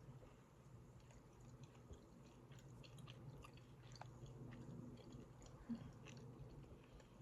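Faint chewing of a honey-soaked sweet topped with coconut, with scattered soft clicks of the mouth.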